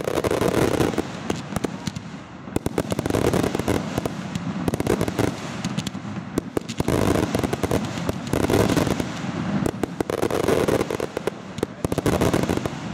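Fireworks finale barrage: a dense, continuous run of bangs and crackles from aerial shells and low-level bursts, swelling louder every second or two.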